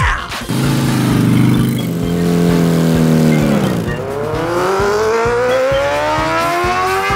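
Motorcycle engine sound: a steady engine note holds for about three seconds, dips, then revs up in a long rising pitch.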